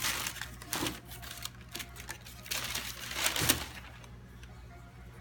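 Rustling and light clattering from sneakers and their paper packaging being handled, in two short spells: one at the start and another about two and a half seconds in.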